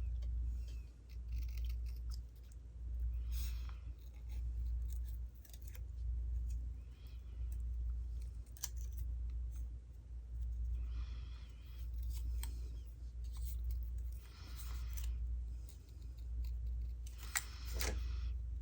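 Scissors cutting out a small paper heart: a series of short snips every second or two, over a low hum.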